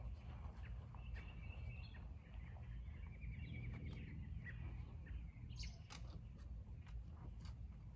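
Faint outdoor ambience: a steady low rumble with birds chirping a couple of times.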